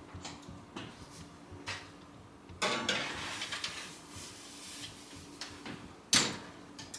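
Kitchen handling sounds: small clinks and knocks of dishes and utensils, a longer rustle about three seconds in, and one sharp knock about six seconds in.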